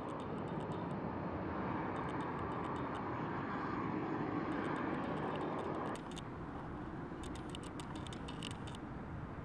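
Boeing 737 airliner's jet engines running with a steady rush that grows slightly louder as the jet lines up on the runway. About six seconds in the sound drops suddenly to a quieter, more distant jet noise of the airliner on its takeoff roll.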